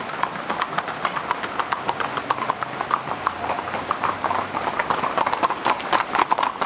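Hooves of several ridden horses clip-clopping on a hard road in quick, overlapping clicks.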